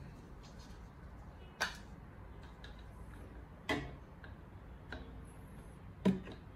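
A few sharp knocks, about two seconds apart, as an empty plastic bottle is handled, set down on a digital scale's metal tray and back on a wooden table.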